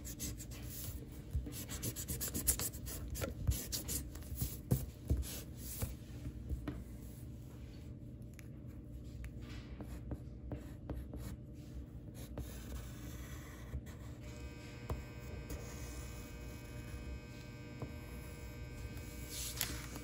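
Drawing strokes scratching on paper, many short strokes in quick succession that thin out after about twelve seconds, over a low steady hum.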